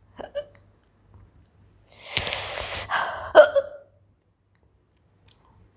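A woman hiccupping, brought on by eating black pepper and ginger: a small hiccup just after the start, then a long breathy rush of air, then a loud, sharp hiccup about three and a half seconds in.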